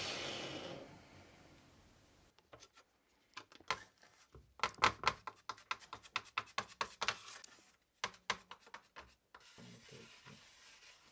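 A hand scrubbing white powder over a metal sheet in quick rubbing strokes, about four a second at their busiest, starting about two seconds in and stopping near nine seconds. At the very start, the noise of an angle grinder that has just been switched off fades away.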